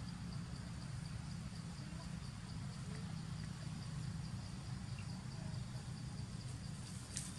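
Forest ambience with insects calling in a high, evenly pulsing chirr over a steady low hum; a single sharp click near the end.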